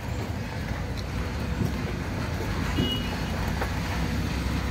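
Steady rumble of road traffic beside a street stall, with a brief high beep a little over halfway through.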